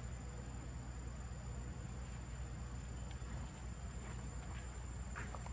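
Insects trilling: one steady high-pitched tone, over a low steady rumble.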